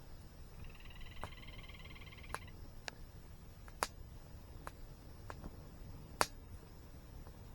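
Wood fire crackling with scattered sharp pops, the loudest a little after six seconds in. A bird's rapid trill runs for about two seconds near the start.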